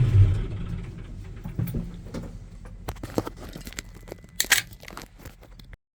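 A vehicle engine shuts off and winds down in the first half second. Scattered light clicks follow, with a brief jingle of keys about four and a half seconds in.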